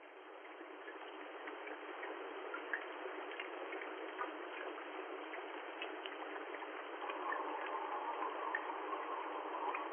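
Steady rain with scattered small ticks of drops, growing louder over the first few seconds.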